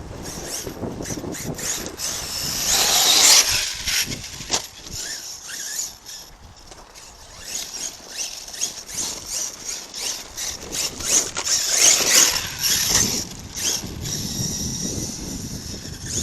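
ARRMA Kraton 6S RC monster truck on an 8S brushless power system being driven hard. A high-pitched motor and drivetrain whine swells as it accelerates, about three seconds in and again from about eleven to thirteen seconds, over scattered clicks and knocks from the tires and chassis.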